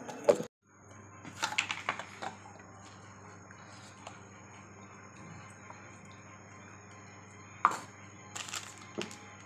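Steel tumbler and plate knocking and clinking as boiled soya chunks are crushed by hand: a cluster of knocks about a second and a half in, a single sharp clink near the end, and a few lighter taps after it, over a steady faint hum.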